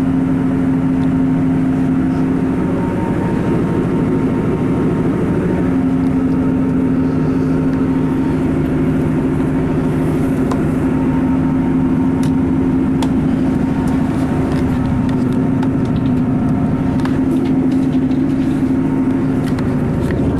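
Cabin noise inside a Class 159 diesel multiple unit under way: the steady hum and drone of its underfloor diesel engine and running gear. The main drone drops out for a few seconds about two seconds in, then returns. A few light clicks come later.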